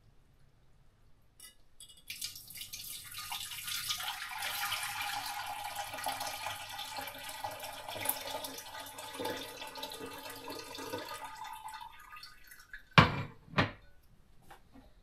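Liquid pouring and splashing steadily into a vessel for about ten seconds, then two sharp knocks a little over a second before the end.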